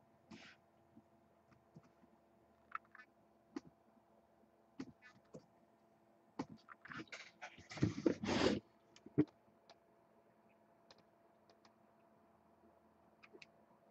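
Trading-card boxes and packs being handled and opened: scattered clicks and taps, with a short burst of rustling and tearing packaging about eight seconds in.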